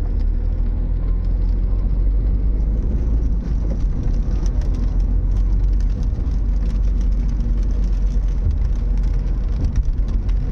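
Steady low rumble of a car driving, heard from inside the vehicle, with scattered faint ticks over it.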